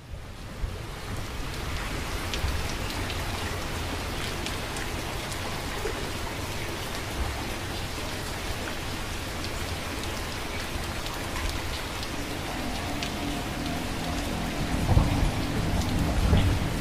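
Steady heavy rain with fine scattered drop clicks over a low rumble of thunder, which swells near the end. Faint held musical tones come in about twelve seconds in.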